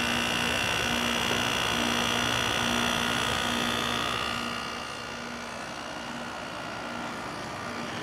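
A Quasar HQ2061FH 6000 BTU window air conditioner (a Panasonic-built unit) running in cool mode, its compressor and fan giving a steady, smooth hum. The compressor is running normally. The sound drops in level about halfway through.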